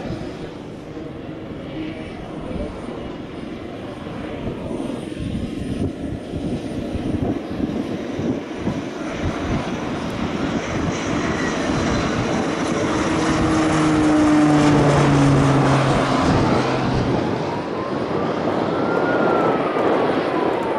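Air Tractor AT-802 single-engine turboprop flying a low pass: a steady propeller and engine drone that builds to its loudest about two thirds of the way through as the plane goes by close. Its engine tones drop in pitch as it passes.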